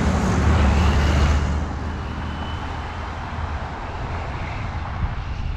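A heavy road vehicle's engine running close by, its low hum fading after about a second and a half and leaving steady traffic noise.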